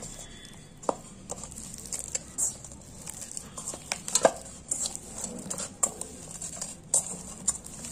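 Hands kneading soft, buttered maida dough in a stainless steel bowl: irregular soft pats and squishes, with scattered sharp clicks and knocks of hand and dough against the steel, the loudest about a second in and around four and six seconds in.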